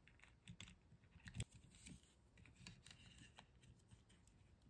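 Faint clicks and rustling of fingers handling small plastic parts on a 1/24-scale RC crawler chassis, pressing the ESC into place and working the battery strap. The sharpest click comes about a second and a half in.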